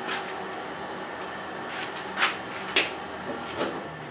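Hardinge toolroom lathe's carriage controls worked by hand: two sharp metallic clunks about half a second apart a little past two seconds in, and a softer one near the end, over a steady electric motor hum.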